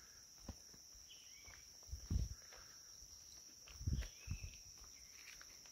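Footsteps on a paved road, with two heavier low thumps about two and four seconds in, over a steady high insect drone from the surrounding tropical forest. A few short bird chirps come through.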